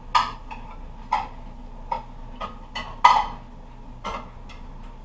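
Bowls clinking against one another as they are put away: about ten sharp clinks with a short ring, irregularly spaced, the loudest about three seconds in.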